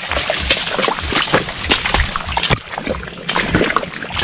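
Footsteps squelching and splashing through wet mangrove mud, with leaves and branches rustling and scraping as people push through the thicket. It comes as a dense, irregular run of short crackles and soft thuds.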